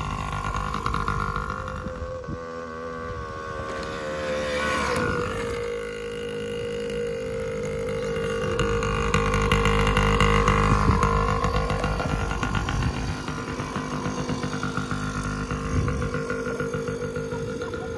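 Yamaha PW50's small air-cooled two-stroke single-cylinder engine running as the mini dirt bike is ridden, its pitch rising and falling several times as the throttle is opened and closed, loudest around the middle.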